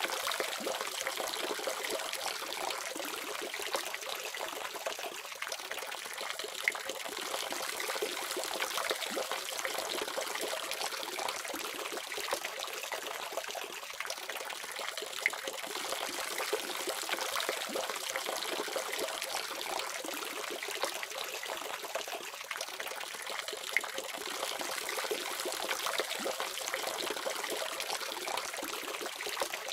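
Water running steadily from a faucet, splashing and trickling, with a few faint drip-like clicks.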